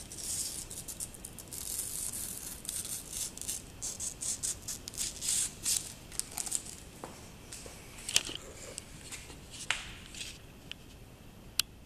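Dense crinkling and rustling as a hand presses a new Alfa Romeo badge onto a car's front grille. It eases off about six seconds in, leaving a few scattered sharp clicks and taps, the sharpest near the end.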